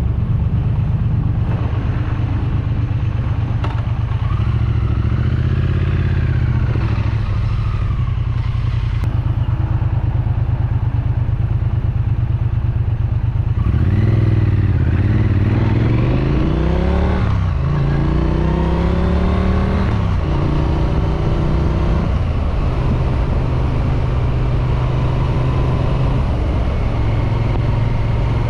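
Triumph Street Twin's 900cc parallel-twin engine running through its exhaust on the move, revs rising and falling. About 14 seconds in it accelerates, pitch climbing, dips briefly, then climbs again before settling to a steady low-revving run.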